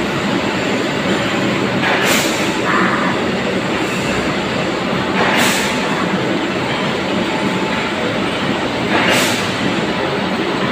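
Large forklift working under load while it lifts a stack of concrete railway sleepers onto a truck: its engine runs steadily, and a short hiss comes three times, about every three and a half seconds.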